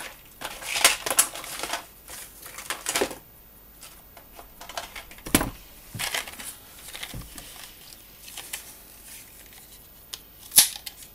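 Rustles and light taps of small objects being handled on a work desk, with a sharp click about five seconds in and a louder one near the end.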